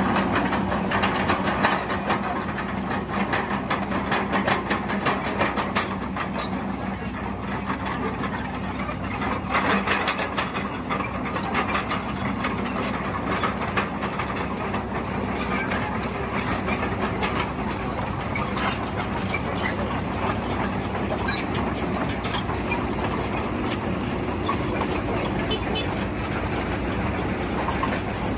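Crawler excavators, a Kobelco SK200 and Hitachi Zaxis machines, travelling in a line: diesel engines running with a steady low hum under a dense, irregular clanking of steel tracks.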